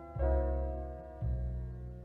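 Background piano music, slow, with a new chord struck twice.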